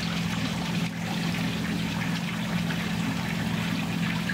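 Water pouring and trickling steadily into a pool pond from its filter return, over a low, steady hum.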